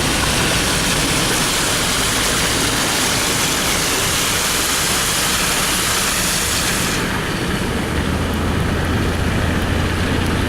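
A car driving through floodwater: a loud, steady rushing hiss of water sprayed up by the tyres, over a low engine hum. The hiss cuts off suddenly about seven seconds in, leaving only the engine hum.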